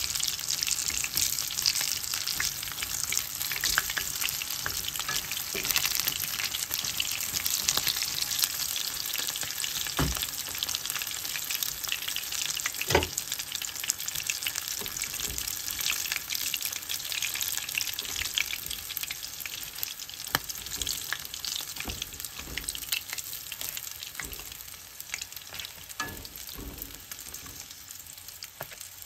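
Batter-coated shrimp deep-frying in oil, a dense steady crackle and sizzle that eases off over the last few seconds. Two sharp knocks come about ten and thirteen seconds in.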